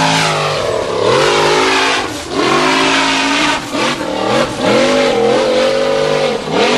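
Formula Offroad buggy's engine revving hard up a steep gravel hill climb, the revs dropping and surging back up about four times as the throttle is worked, with its spinning tyres throwing gravel.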